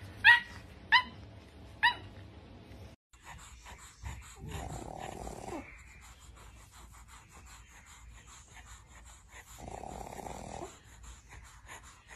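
Pug puppy giving three short, high yips in the first two seconds. After a break, a sleeping pug snoring: two long rough snores about five seconds apart.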